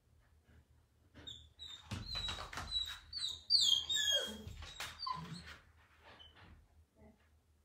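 Young puppies whimpering and yipping in a run of short, high-pitched squeals that fall in pitch, dying away about two-thirds of the way through.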